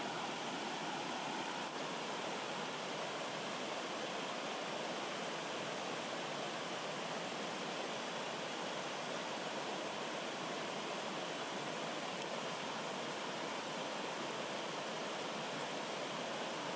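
Rocky stream rushing over boulders and small cascades: a steady, even rush of water.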